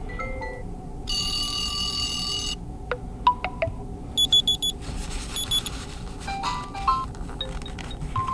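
OnePlus Nord CE 2 Lite ringtones previewed one after another, each for only a moment: short melodic note phrases, a buzzing electronic tone held for about a second and a half, and runs of quick high beeps.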